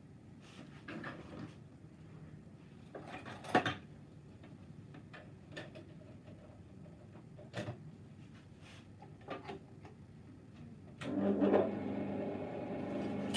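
Scattered knocks and clicks of tools and parts being handled on a workbench, the sharpest between 3 and 4 seconds in. About 11 seconds in, the electric motor of a bench power tool starts and runs steadily at speed.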